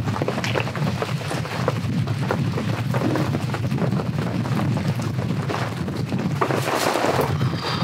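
Heavy rain falling on a tent, a dense steady patter of drops.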